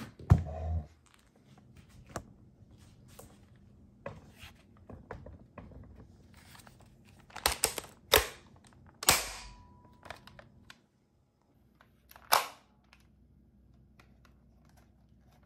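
Plastic clicks and clacks of a Nerf Rival blaster being handled and loaded with foam balls. There are several sharper snaps: the loudest comes about a third of a second in, with others around eight to nine seconds in and one about twelve seconds in.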